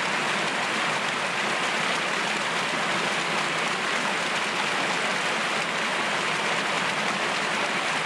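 Mountain stream running fast over rocks under ice shelves and snow: a steady rush and splash of water.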